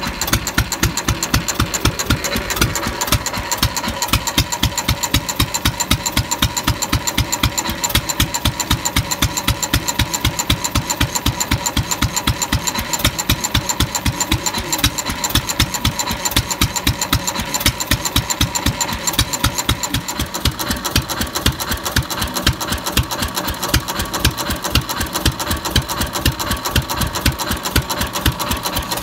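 Fairbanks-Morse Z 1½ hp single-cylinder hit-and-miss stationary engine running on its first run, with a fast, even clatter of clicks.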